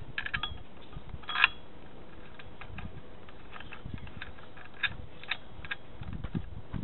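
Small metal clicks and clinks as a flywheel locking tool and its bolt and nut are fitted by hand to the flywheel of a 1600 VW air-cooled engine. The clicks come irregularly, with one sharp, loud clink about a second and a half in.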